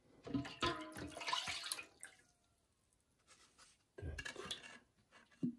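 Plastic knocks and rattles with a little water, from a water-filter housing and cartridge being handled during a cartridge change: a busy stretch at first, another burst about four seconds in, and a sharp click near the end.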